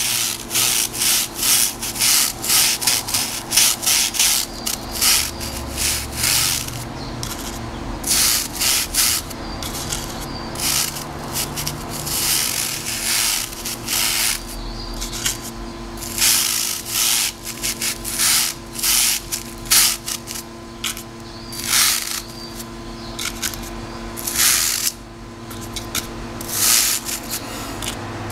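Toothbrush bristles scrubbed across a wire mesh grid, a scratchy rubbing in runs of quick strokes with short pauses between them. The paint-loaded brush flicks black paint spatter through the grid.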